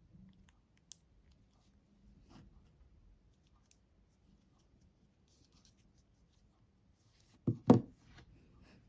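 Handling noise: faint clicks and rustles, a sharp click about a second in, then two loud knocks in quick succession near the end.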